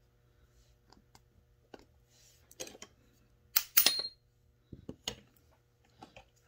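Scattered light clicks and taps of a screwdriver and small metal parts on a Tillotson chainsaw carburetor being taken apart by hand, with a louder cluster of sharp knocks a little past halfway.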